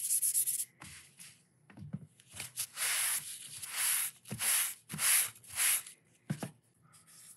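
A cloth wiped across a wet Japanese waterstone in several long hissing swipes, after a brief quick rubbing on the stone at the start. A few soft knocks come in between.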